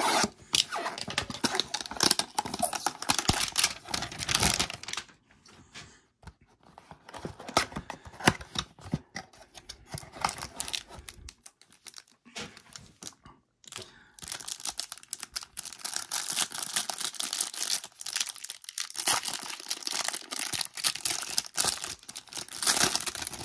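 Cardboard trading-card hanger box being torn open, then the cellophane wrapper around a stack of cards crinkling and tearing as it is pulled off. The sound is dense for the first few seconds, turns to scattered rustles and clicks, and becomes dense crinkling again through the second half.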